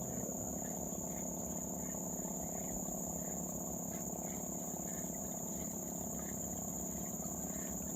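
Riverside insect chorus: a continuous high-pitched trilling that holds steady, over a low steady hum.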